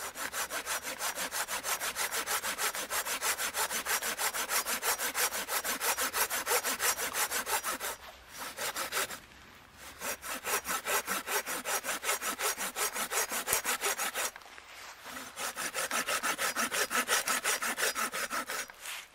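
Hand saw cutting through firewood in steady back-and-forth rasping strokes, about two to three a second, stopping briefly twice.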